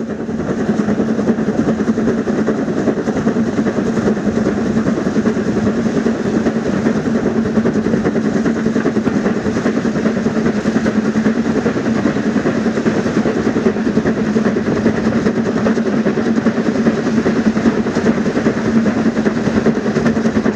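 A train running along the track: a loud, steady rumble that holds even throughout, with no pauses.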